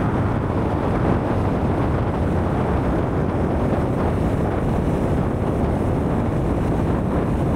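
Wind buffeting the microphone: a steady, loud rumbling noise, heaviest in the low end, without a break.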